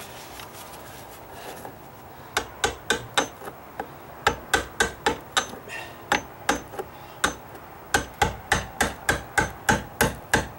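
Hammer tapping a chisel in quick, even strokes, about three a second, starting about two seconds in. The chisel is cutting raised knots down flush on a weathered wooden deck stair tread.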